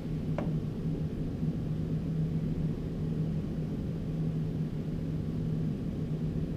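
Steady low hum and rumble of an indoor shooting range's background noise, with one faint click about half a second in.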